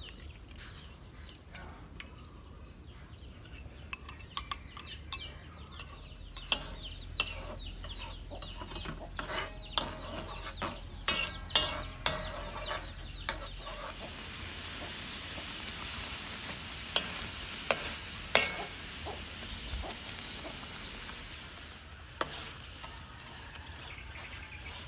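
Tamarind sauce sizzling as it simmers and reduces in an aluminium pan, with a metal spoon scraping and clicking against the pan as it is stirred. The sizzle becomes a steady hiss from about halfway through as the sauce thickens.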